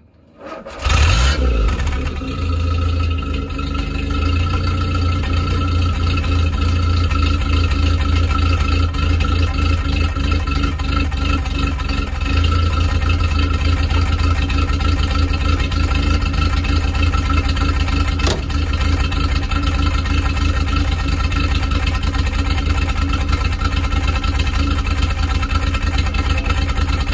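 Land Rover Series 3's 2.25-litre four-cylinder petrol engine catching about a second in with the choke about halfway out, then running steadily at the tailpipe. It is an engine the owner suspects of running rich, with soot inside the exhaust pipe.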